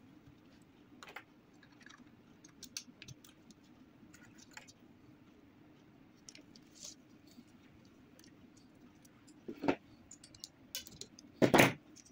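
Scattered small clicks and ticks of plastic and metal printer parts being handled as the fuser film is fitted into the laser printer's fuser unit, with a couple of louder knocks near the end.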